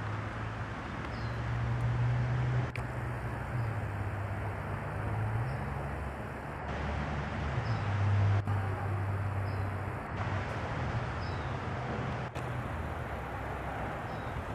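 Outdoor ambience: a low steady engine hum from traffic, wavering slightly in pitch, with faint short bird chirps every second or two.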